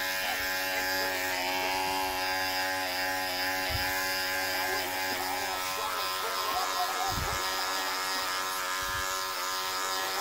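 Electric hair clippers buzzing steadily as they are run through shaggy synthetic fur, with a few low thumps from handling.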